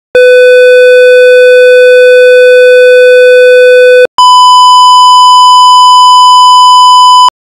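Electronic test tones for a hearing check: a steady 500 Hz tone for about four seconds, then after a brief break a steady 1000 Hz tone for about three seconds, both loud and cut off abruptly.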